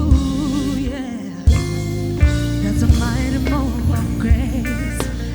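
Gospel music: a solo voice singing wavering, ornamented lines over a band with a steady bass and a regular drum beat. The bass and drums drop out briefly about a second in, then come back.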